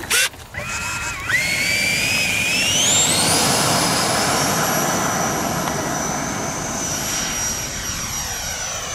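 The 90mm electric ducted fan of an FMS Super Scorpion RC jet spooling up to takeoff power: a whine that rises steadily in pitch over about two seconds, then holds high and steady as the jet climbs away. A brief loud noise comes right at the start.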